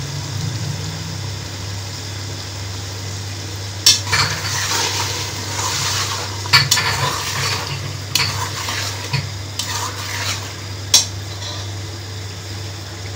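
Metal slotted spatula stirring whisked yogurt into mutton masala in an aluminium pressure cooker, scraping against the pot, with the masala sizzling and a few sharp clinks of metal on metal. A steady low hum runs underneath.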